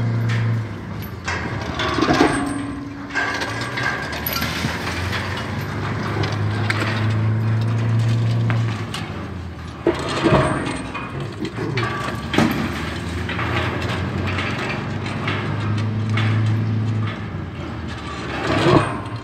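Demolition of a concrete silo: a crane's diesel engine drone that swells and drops away in stretches of a few seconds, with about four sharp crashes and cracks of concrete breaking and falling.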